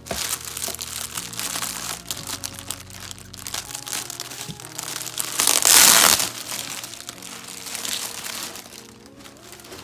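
Packaging crinkling and rustling as an item is unwrapped by hand, with the loudest crackle about six seconds in.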